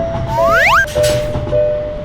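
Level crossing alarm sounding a two-note electronic tone that pulses just under twice a second, over a low train rumble. About half a second in, a short rising whistle-like glide sweeps up, and after it the alarm goes on a little lower in pitch.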